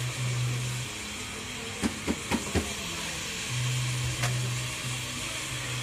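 Shop background noise: a steady hiss under a low hum that drops out for a few seconds in the middle. Four quick sharp clicks come about two seconds in.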